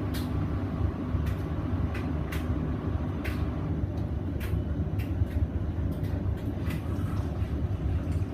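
Hoover VisionDynamic washing machine spinning a blanket and bedding load: a steady low rumble with light, irregular clicks and knocks about once a second.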